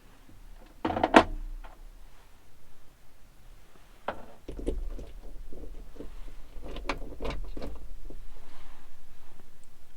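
Small hardware and tools being handled: a quick cluster of knocks and clatter about a second in, then a run of irregular clicks and knocks from about four seconds on, over a low rumble.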